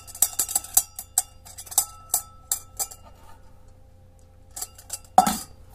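Folding wire handles of a stainless steel Ozark Trail camp cup rattling and clicking against the cup as they are wiggled: a fast run of light metallic clicks for about three seconds, then a few more near the end with one louder knock. The loose handles do not stay put.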